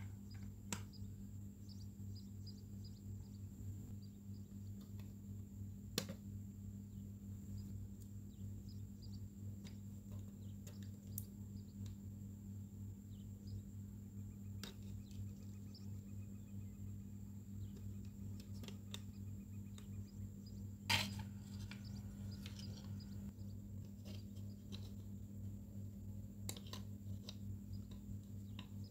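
Scattered light clicks and taps of small parts being handled, over a steady low electrical hum, with a sharper click about 6 seconds in and the loudest about 21 seconds in.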